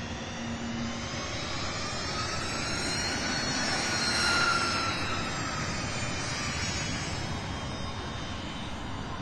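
Dassault Falcon 900 trijet's engines whining as it taxis past. The whine rises in pitch and grows louder to a peak about four seconds in, then falls and fades.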